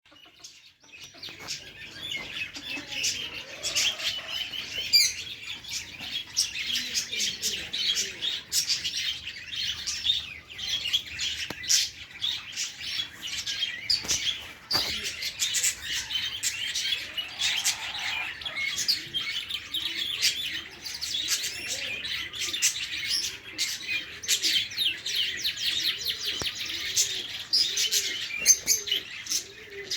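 Many small aviary birds chirping and twittering at once in a dense, continuous chatter. From about two-thirds of the way in, a lower call repeats in a quick steady series underneath.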